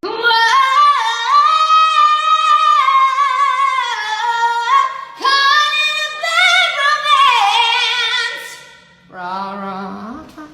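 A high-pitched voice singing long, wavering notes without clear words, in two phrases. Near the end a lower voice sounds briefly.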